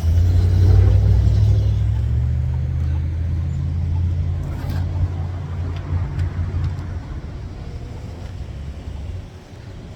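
A road vehicle's engine passing close by with a low engine note, loudest about a second in and fading away over the next several seconds.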